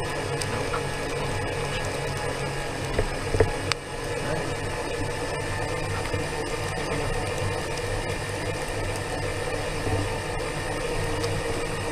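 Small electric scooter's drive motor and gears whining steadily as it rolls along pavement, with a brief clatter of knocks about three seconds in.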